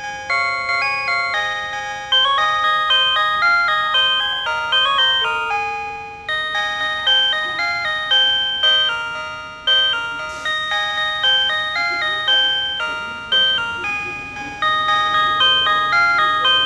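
PATLITE electronic annunciator playing its signal-clear melody, a looping phrase of bright electronic chime notes that each strike and fade. It tells the crew of a one-man train that the departure signal has cleared, and keeps sounding for as long as the signal is clear.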